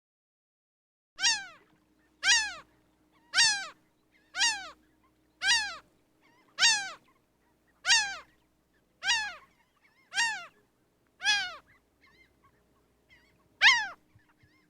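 A gull calling repeatedly, eleven short falling mewing cries at about one a second, with a longer pause before the last one near the end.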